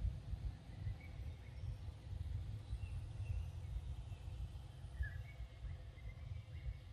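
Low, uneven rumble on the microphone, with a few faint, short high chirps scattered through it.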